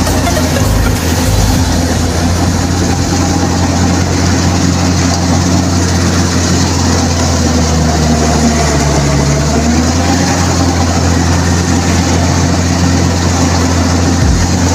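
Small rice combine harvester's engine and threshing machinery running steadily while cutting standing rice. The engine note sags slightly about two-thirds of the way through, then recovers.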